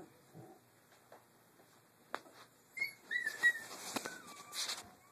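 Three-week-old Doberman puppies giving a few high, thin squeaks and a short falling whine in the second half, over rustling and a few knocks.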